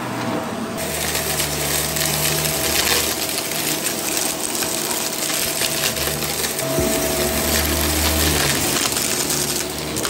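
Vax Mach Air Mk2 upright vacuum cleaner running on carpet: its motor gives a steady whine and hiss that grows louder about a second in, with many small clicks and crackles as grit and debris are sucked up.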